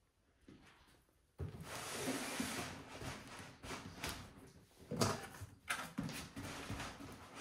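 Cardboard box and packaging of a PC case being handled. A scraping slide starts about one and a half seconds in, followed by rustling and several knocks, the loudest about two thirds of the way through.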